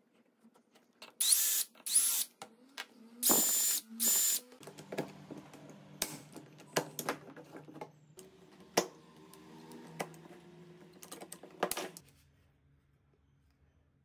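PVC pipe parts and a metal handle being handled and fitted together. In the first four seconds there are four short, loud scraping bursts, then a run of light clicks and knocks of plastic and metal that stops about two seconds before the end.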